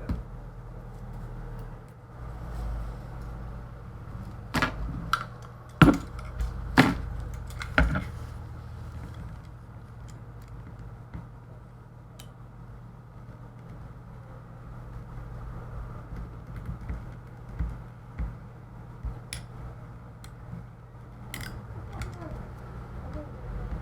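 Scattered sharp clicks and light knocks of hands handling the Chromebook's plastic lid and hinge during repair, bunched together about five seconds in and sparser later, over a steady low hum.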